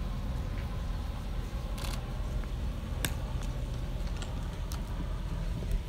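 A few short, sharp clicks: a quick cluster about two seconds in, a single crisp click about a second later, and fainter ones after it. Under them runs a steady low rumble.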